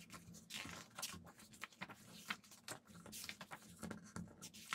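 Pages of a large photobook being turned and handled by hand: faint, irregular paper swishes and rustles.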